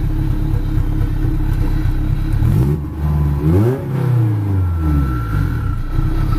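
Turbocharged Honda Prelude four-cylinder engine idling, heard from inside the cabin. It is revved once, rising from about two and a half seconds in and settling back to idle a couple of seconds later.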